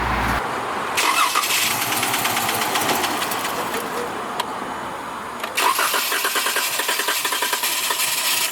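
Chrysler Pentastar 3.6L V6 being cranked by the starter and stumbling as it struggles to catch, in two tries: about a second in and again about five and a half seconds in. The hard start and stumble come from a misfiring cylinder 1 that the mechanic believes is low on compression.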